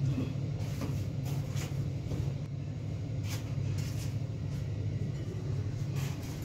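Paper place mats and small plates being set down on a cloth-covered table: a few soft rustles and light clicks, over a steady low hum.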